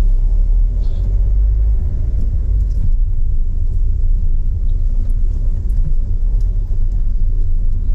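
Steady low rumble of a car driving slowly, heard from inside the cabin: engine and tyre noise.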